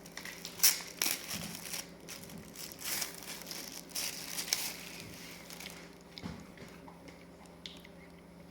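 Paper and packaging being handled, crinkling and rustling in irregular bursts with short clicks, as items are unwrapped from a subscription box; it dies down to a few faint clicks after about six seconds.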